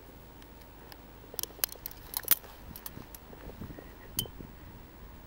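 A few sharp clicks and small rattles from a handheld tape measure being handled: a cluster of clicks in the first half and one more about four seconds in.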